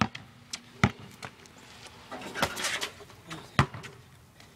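Basketball dribbled on a concrete driveway: three sharp bounces, two within the first second and one more about three and a half seconds in.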